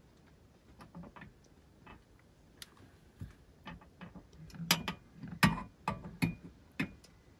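Kindling wood snapping and crackling as a campfire is being lit. The snaps come irregularly, sparse at first, then thicker and louder from about four to seven seconds in.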